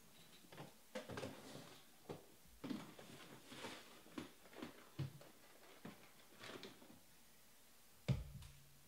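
Faint handling noises in a small room: a series of scattered clicks and rustles, then one sharp thump near the end.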